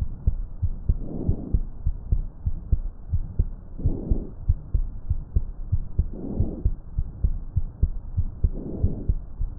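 Chest sounds heard through a stethoscope during lung auscultation: four soft breath sounds, about two and a half seconds apart, over the heartbeat's regular thumps, which stand out throughout.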